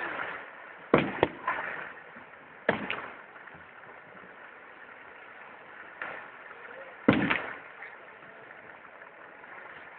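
Aerial firework shells bursting, each a sharp bang with a short rolling tail: two close together about a second in, one near three seconds, and one near seven seconds.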